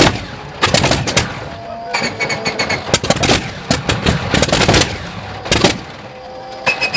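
Shvetsov ASh-62IR nine-cylinder radial aero engine firing unevenly as it starts, still smoking heavily: loud irregular bangs and rapid clusters of pops as cylinders catch and miss. A steady high whine comes and goes alongside.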